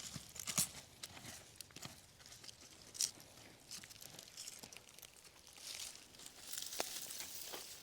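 Soil and dry sweet potato vines being dug through and handled during harvesting: faint scattered crunches and crackles, with a sharper crack about three seconds in and a longer rustle near the end.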